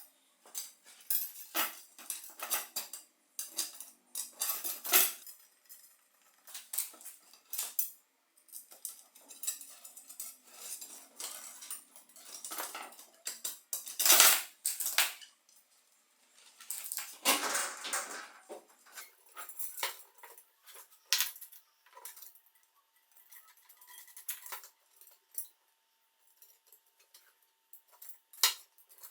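Metal bicycle parts and tools clinking, tapping and scraping as they are handled, in irregular clicks and knocks. A faint steady tone comes in about two-thirds of the way through.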